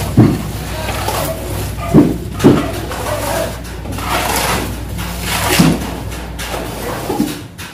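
Shovel scraping and scooping wet cement mortar on a concrete floor in repeated strokes, with a few loud, dull knocks among the scrapes.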